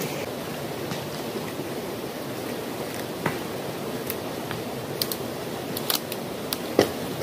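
Steady outdoor rushing noise with scattered dry snaps and clicks as dry branches, bamboo and a plastic tarp are handled, about four of them, the sharpest crack near the end.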